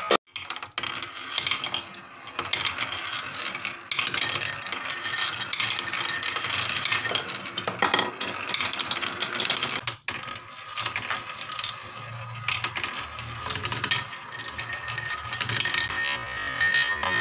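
A marble rolling and clattering along wooden marble-run tracks, over a wavy wooden slope, around a wooden bowl and through a plywood spiral, with rapid small clicks and knocks. The sound drops out briefly about ten seconds in.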